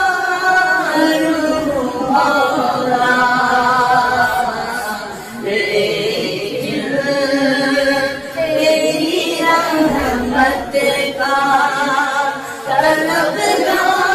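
An Urdu naat sung without instruments: a voice holds long, wavering notes over several phrases, with short breaks between them.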